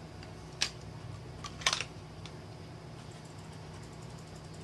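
Two light plastic clicks about a second apart, then a few faint ticks, as a round plastic junction-box cover and a screwdriver are handled, over a steady low hum.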